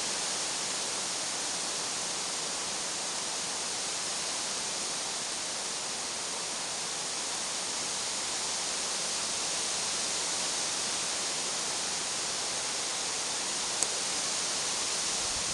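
Wind moving through the pine trees: a steady, even hiss of the forest canopy, with one short click about fourteen seconds in.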